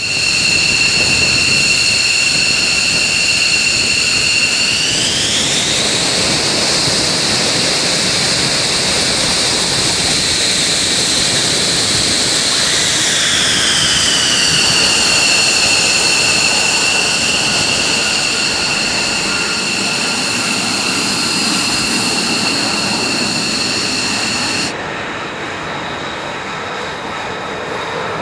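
Fighter jet's turbofan engine whining at a high pitch over a steady rush, spooling up about five seconds in, holding, then winding back down some eight seconds later. A few seconds before the end the shrill whine cuts off suddenly, leaving a quieter, duller engine noise.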